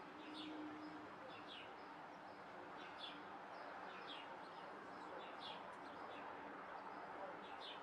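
Small birds chirping faintly in the background, short high falling chirps repeating about once a second over a steady hiss.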